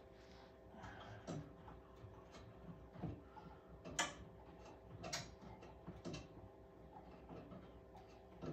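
Scattered light metallic clicks and knocks of hand work on the camera mount's T-bolts being undone, about one a second, the loudest about four seconds in, over a faint steady hum.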